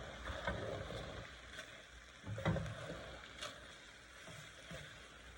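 A cooking spoon stirring in a pot of chicken stew, scraping with irregular knocks against the pot, the loudest knock about two and a half seconds in.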